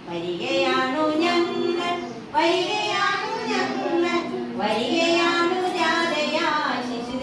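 Young children singing a song together in sung phrases, with short breaks between lines.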